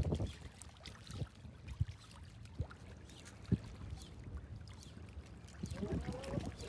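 Small waves lapping and trickling against breakwater rocks, with wind rumbling on the microphone and a few light clicks and knocks.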